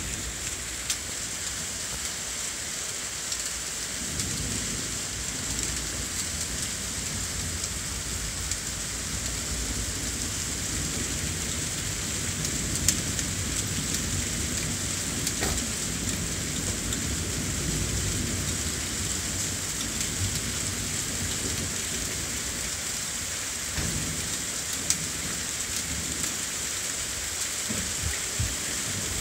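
Heavy thunderstorm: steady heavy rain, with a long low rumble of thunder starting about four seconds in and lasting some twenty seconds, and another rumble near the end. A few sharp raindrop ticks stand out.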